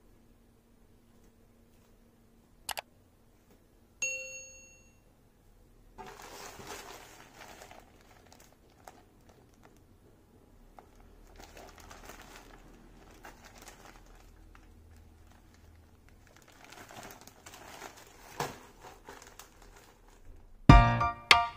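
Thin plastic mailer bag crinkling in irregular bursts as it is handled. A click and then a short ringing ding come before it, and music starts loudly near the end.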